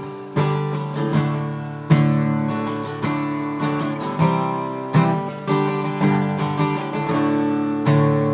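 Acoustic guitar strummed in an instrumental passage between sung verses, with chords struck about once a second and left ringing between strokes.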